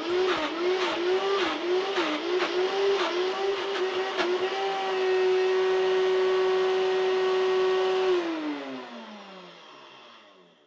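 Vitamix A3500 blender motor running on its highest speed through frozen strawberry sorbet in a 48 oz stainless steel container. While the tamper works the thick frozen mix, the motor pitch dips and recovers about twice a second with knocks of the tamper; with the tamper out it holds a steady high whine, then about eight seconds in it is switched off and winds down, falling in pitch until it stops.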